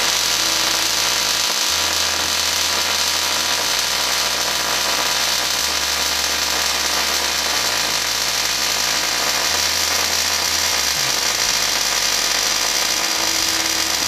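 MIG welding arc laying a bead on quarter-inch steel plate: a steady sizzle. The welder is running a little cold.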